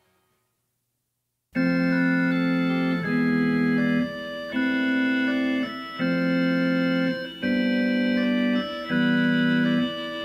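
The last notes of a song fade out, then after a brief silence an organ starts playing: a row of held chords, each about a second long with short breaks between.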